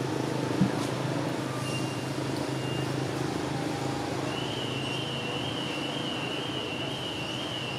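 A steady low mechanical hum, like an engine running, with a single sharp click about half a second in and a high wavering tone starting about four seconds in.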